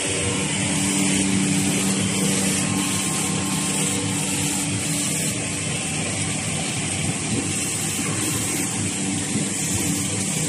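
Automatic V-fold facial tissue production line running: a steady mechanical din with a low, even hum underneath.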